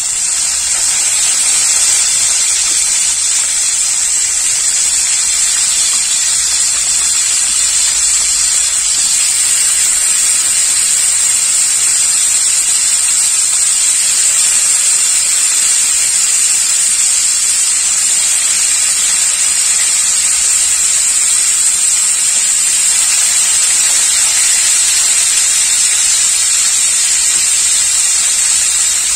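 Pieces of scad fish frying in hot oil in a wok: a loud, steady sizzle.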